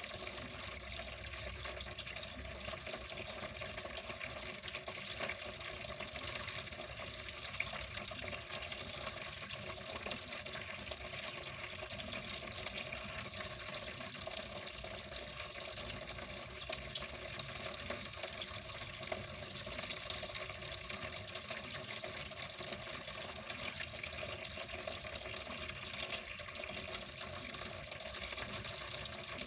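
Running water flowing and splashing steadily without a break.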